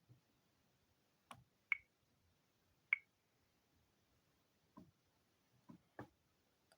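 Faint, scattered taps and clicks, about seven in a few seconds. Two sharper ones carry a brief high ring.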